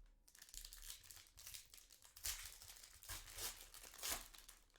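A foil trading-card pack wrapper being torn open and crinkled by hand, a series of faint crackles with a few louder ones around the middle and near the end.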